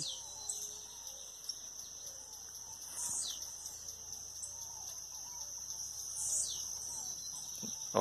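Dawn chorus of several birds singing at once over a steady high insect buzz, with falling high whistles about three and six seconds in.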